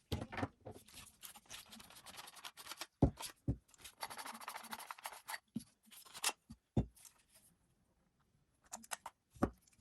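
A Savi's Workshop lightsaber hilt being taken apart by hand: scattered clicks and a few sharper knocks, with a scraping stretch about halfway through as parts are twisted or slid, and a short pause before a last few clicks near the end.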